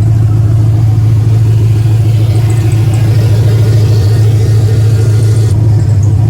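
LS1 V8 running steadily through freshly fitted Kooks headers. Under it is a noise the owner takes for the power steering pump, which he puts down to low power steering fluid.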